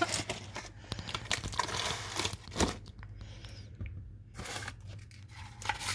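Packaging of a boxed hair appliance being opened and handled by hand: irregular rustling, crinkling and tearing, busiest in the first two seconds, with a few separate bursts later on.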